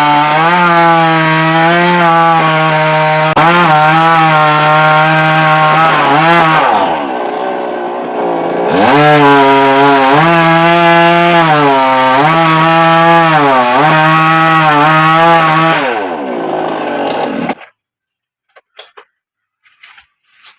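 Two-stroke chainsaw running at high revs while cutting a coconut palm trunk, its pitch dipping under load and recovering every second or so. The revs sag for a couple of seconds in the middle, and the sound cuts off suddenly near the end, followed by a few faint cracks.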